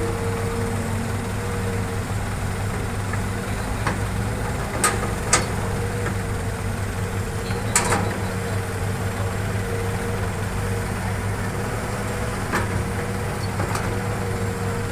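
Hitachi hydraulic excavator's diesel engine running steadily under working load while it digs soil, with a few sharp clanks and knocks scattered through as the bucket works.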